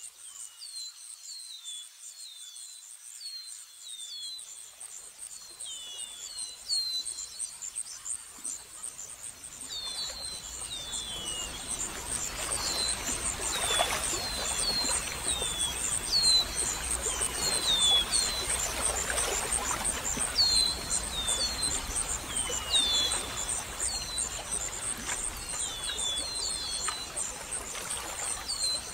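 Outdoor nature ambience: insects trill steadily in a high pulsing buzz while birds give many short downward chirps. About a third of the way in, a rushing noise swells up beneath them and stays.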